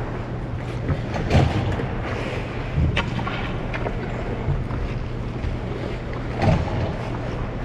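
Ice skates gliding and scraping across rink ice, with steady wind rush over the microphone and a low steady hum. A few sharper scrapes stand out, about a second and a half in, at three seconds, and past six seconds.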